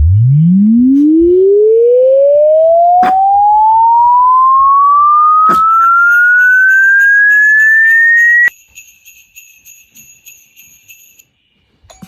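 A loud, pure electronic tone sweeping steadily upward from a low hum to a high whistle over about eight and a half seconds, then cutting off suddenly. Faint metallic jingling runs on for a few seconds after it.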